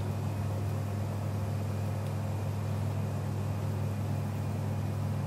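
A steady, unchanging low hum.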